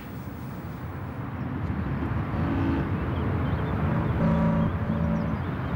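A low rumbling noise that swells in level, joined about halfway through by short repeated pitched notes.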